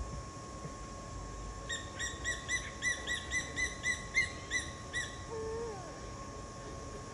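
A bird calling: a run of about a dozen quick, clear notes, each rising slightly, about four a second, followed by a short lower call.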